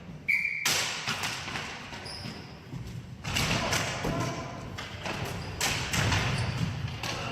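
Ball hockey play: repeated thuds and knocks of sticks and ball against the floor and boards.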